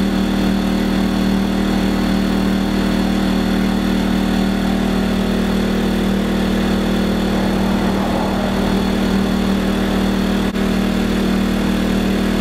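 WEN 2000-watt inverter generator's small four-stroke engine running at a steady, unchanging speed: a constant hum.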